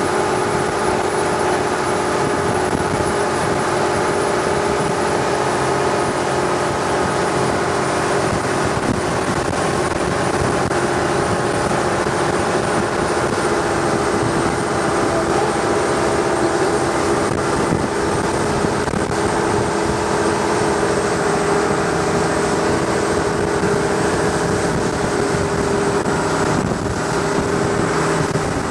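Long-tail boat's engine running steadily at cruising speed: a loud, even drone with a faint high whine that drifts slowly lower.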